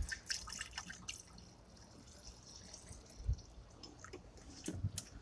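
White vinegar dribbling and dripping from a plastic gallon jug held to the end of an exhaust pipe, faint, with scattered small ticks and a soft bump about three seconds in.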